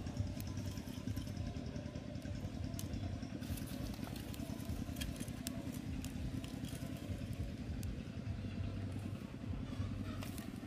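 A small dry-twig fire crackling as lumps of charcoal are set on it, with scattered light clicks and snaps over a steady low rumble.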